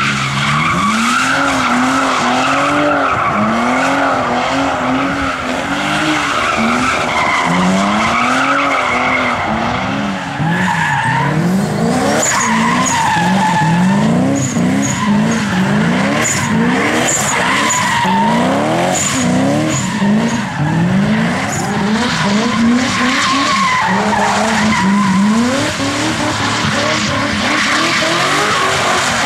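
Rally car engine revving hard, its pitch climbing fast and dropping again over and over as it accelerates and shifts gear through the stage. Short tyre squeals come through in the middle stretch.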